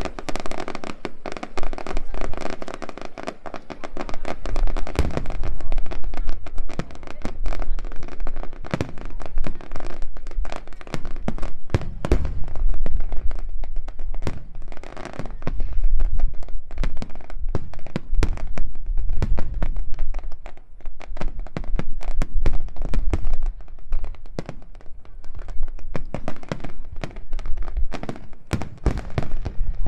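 Finale barrage of aerial firework shells bursting in rapid succession: deep booms overlapping with sharp cracks and crackle, almost without a break.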